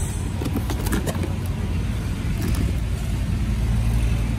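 A steady low rumble, with a few light clicks and crinkles about a second in as a bubble-wrapped package is handled with a box cutter.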